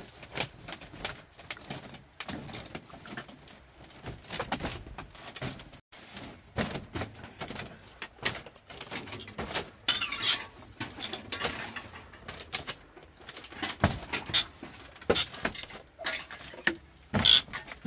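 Irregular wooden knocks and clatter from a light bamboo table being lifted, moved and carried, with footsteps on a slatted bamboo floor. The sharpest knocks come near the end.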